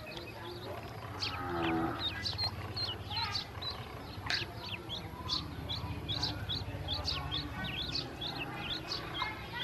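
A brood of ducklings peeping without a break: many short, high, downward-sliding peeps overlapping one another.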